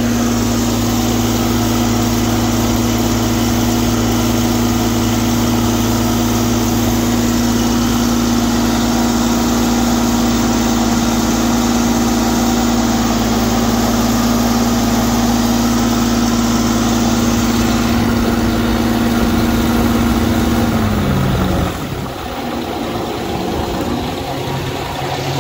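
Prochem Apex truckmount carpet-cleaning unit running on its Kubota WG750 three-cylinder gasoline engine, a steady, loud engine hum. About three-quarters of the way through the pitch falls and the sound drops as the engine is throttled back, settling to a lower, slower idle.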